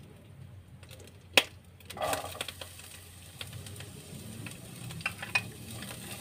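Chopped onion hitting hot oil in a frying pan, sizzling steadily from about two seconds in as the sauté of onion begins. A sharp click comes just before the sizzle, and light spoon clicks on the pan come near the end.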